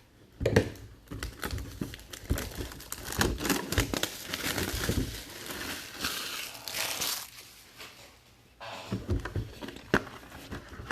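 Packaging of a mini football helmet being opened by hand: a dense run of crinkling, rips and small knocks of box and wrapping. It eases off for about a second near the end, then the handling starts again.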